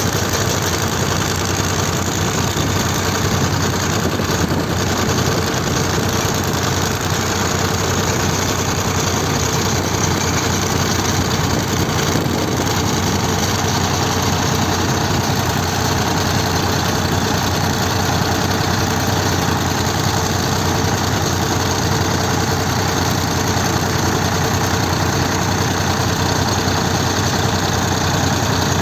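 Engine of a heavy earthmoving machine running steadily at an even speed.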